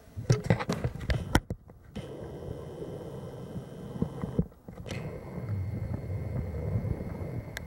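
Handling noise on a handheld camera's microphone: a quick run of knocks and rubs in the first second and a half, then a steady low rumble as the camera swings round.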